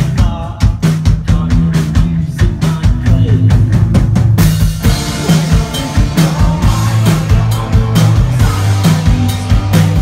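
Live band playing: a drum kit beating steadily with kick and snare under sustained bass notes and guitars. A little over four seconds in, the band comes in fuller and slightly louder.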